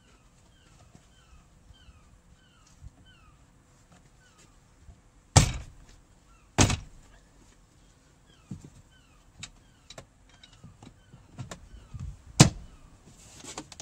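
Range Rover L322 door trim panel being knocked by hand onto its plastic retaining clips: a few sharp thumps, the two loudest about five and a half and six and a half seconds in and another near the end, with lighter knocks between.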